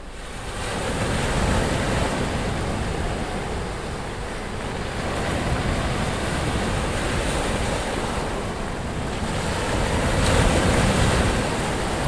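Rough sea surf breaking continuously on the shore: a dense, unbroken rushing wash of waves that builds over the first second and swells louder a couple of times, most strongly near the end.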